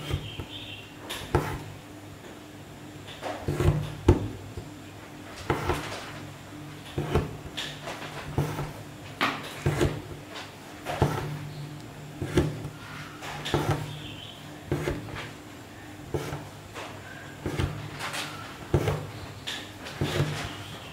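Hand embroidery: a needle pushed through fabric and the thread drawn after it, about once a second, as long-and-short stitches are worked.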